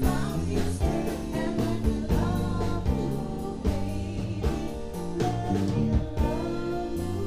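Live band playing a song: a woman singing lead over electric guitar, electric bass and a drum kit, with regular drum hits.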